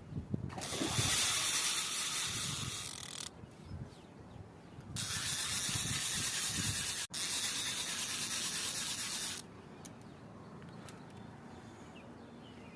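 Fishing reel drag buzzing as a hooked catla pulls line off, in two runs of about three and four seconds with a short pause between.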